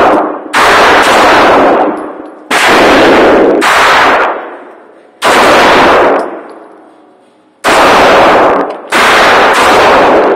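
Semi-automatic pistol firing six single shots at uneven intervals of one to two and a half seconds, each a loud, distorted crack with a long echo dying away in the concrete indoor range.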